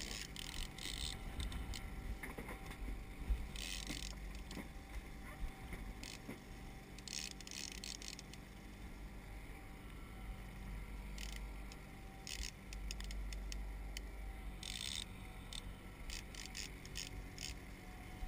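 Small outboard kicker motor running steadily at trolling speed, a low even drone. Brief bursts of high hiss come and go every few seconds over it.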